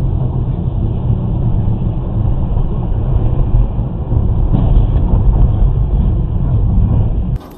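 Steady low rumble of engine and tyre noise inside a moving car's cabin on a snowy road. It grows a little louder about halfway through and cuts off suddenly near the end.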